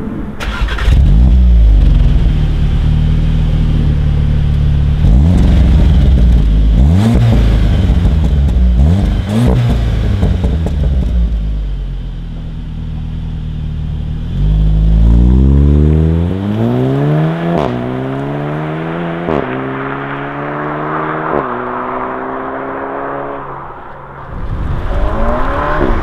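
VW Golf GTI Clubsport's turbocharged four-cylinder engine and exhaust, revved in several quick blips while standing. Later it is heard accelerating hard, the pitch climbing and dropping sharply at each of three or four upshifts, and near the end another loud burst of throttle.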